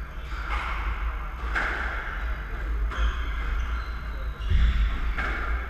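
Squash court between rallies: players' footsteps and shoe scuffs on the wooden floor, several short ones, over a steady low hum.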